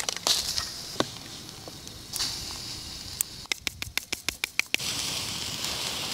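A plastic squeeze bottle of mayonnaise sputtering out in short hissy squirts. Then a seasoning bottle is shaken over a plate, giving a quick run of about ten clicks, followed by a steady soft hiss.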